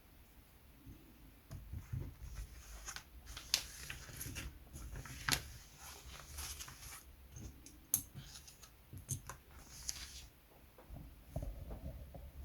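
Small handling noises at a workbench: scattered clicks, taps and rustling as tools and small parts are picked up and moved, with a few soft knocks near the end.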